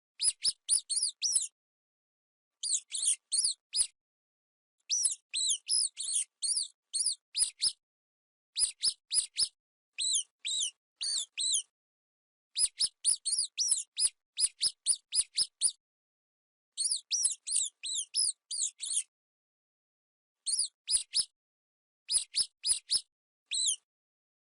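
Mouse squeaks: quick runs of short, high-pitched squeaks, several in a row, broken by short pauses.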